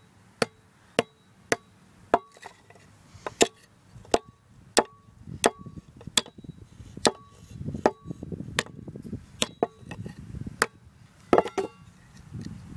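An air horn's metal canister being struck over and over, a sharp clank a little under twice a second, some strikes leaving a brief metallic ring.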